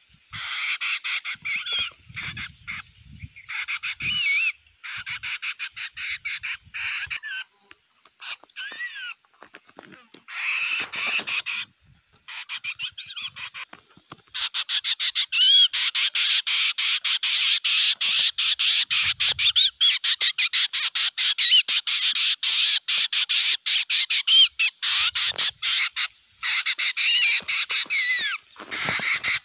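A black crested songbird singing: bursts of fast, rattling chatter mixed with short whistled slurs, broken by pauses over the first half and nearly unbroken from about halfway on.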